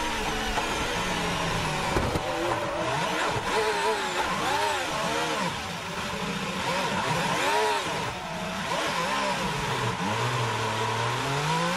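Onboard sound of a 2018 Ferrari Formula 1 car's 1.6-litre turbocharged V6 engine. There is a sharp knock about two seconds in. The engine then revs up and down repeatedly as the car spins after contact, drops to a low steady note, and rises again near the end as the car pulls away.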